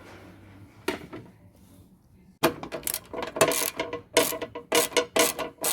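Ratchet spanner being worked in quick repeated strokes, its pawl clicking, starting about two and a half seconds in after a single knock about a second in.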